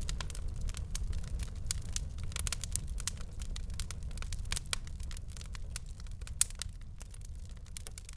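Bolliger & Mabillard roller coaster train rolling slowly through the station, heard from the front seat: a low rumble with scattered clicks and crackles, slowly fading out.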